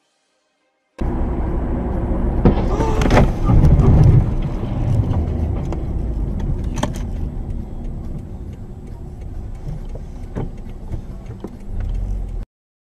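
Car driving, heard from inside the cabin: a loud low rumble of road and wind noise. About two and a half seconds in it grows louder, with knocks and rattling, then goes on with scattered clicks and cuts off suddenly near the end.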